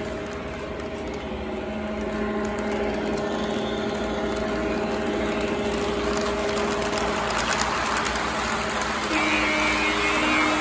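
O gauge model train running on three-rail track: a steady electric motor hum under the continuous rumble and clatter of wheels on the rails. It grows louder about two seconds in, and again near the end.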